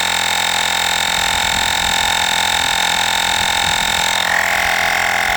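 Olgeo M7 portable battery air compressor humming steadily as it pumps up a tyre, with a slight change in its tone about four seconds in. The pressure is climbing slowly through about 24 to 25 psi.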